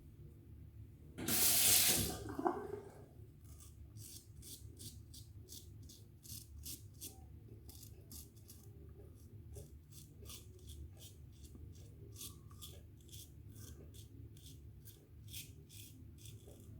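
A water tap runs briefly about a second in, as the razor is rinsed. Then a Gem Featherweight single-edge safety razor scrapes through lathered stubble in short, crisp strokes, about two or three a second.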